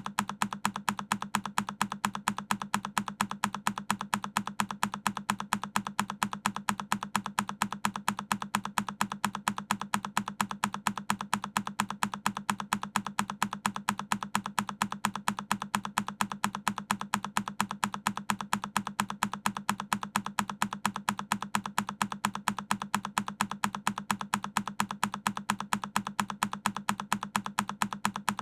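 Keychron K10 mechanical keyboard: a single key press recording looped, so the same key click repeats at a rapid, perfectly even pace.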